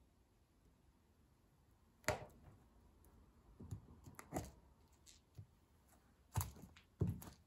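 Stiletto heels of leather boots tapping and scuffing on a laminate floor as the wearer shifts her feet: several short, sharp clicks, the first and loudest about two seconds in.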